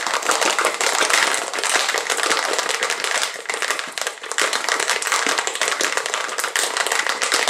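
Ice and liquid rattling hard inside a stainless-steel cocktail shaker being shaken to chill the drink: a fast, continuous clatter that eases briefly about four seconds in.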